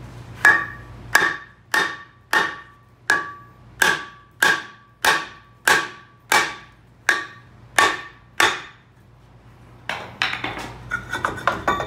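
A hammer strikes a rusted-on rear brake rotor about thirteen times at an even pace, to knock the stuck rotor off the hub; each blow gives a sharp metallic bang and a short ring from the rotor. Near the end, a quick run of lighter metallic clinks and rattles follows.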